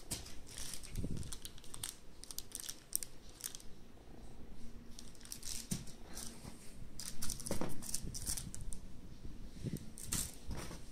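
Plastic accessory bags crinkling and rustling as they are handled, in irregular bursts, with a few dull thuds from packaging being moved about in a cardboard box.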